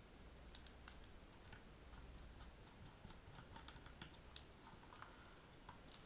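Faint, scattered light clicks and taps from a laptop hard drive being handled and fitted into its metal mounting bracket.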